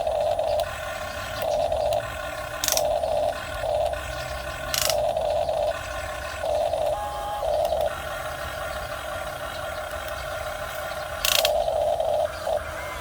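Small electric motors and gearboxes of a miniature radio-controlled excavator whining in stop-start bursts as its controls are worked, with three sharp clicks along the way.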